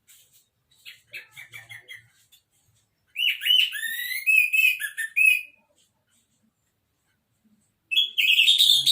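Orange-headed thrush singing: a short, soft phrase, then a loud run of quick whistled notes that glide up and down, a pause of a couple of seconds, and a new loud phrase starting near the end.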